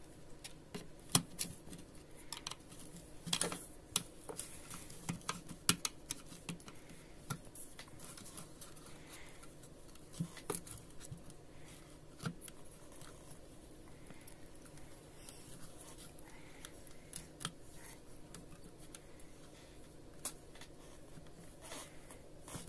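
Scattered light clicks, taps and scrapes of hard plastic as the housing of a Vitek VT-1201 electric iron is pried and lifted apart by hand during disassembly, a few clicks sharper than the rest.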